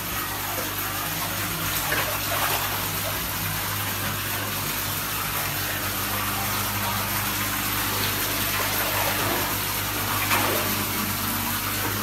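Tap water gushing steadily onto a flooded tiled floor, with a few brief splashes in the shallow water where large fish lie. A steady low hum runs underneath.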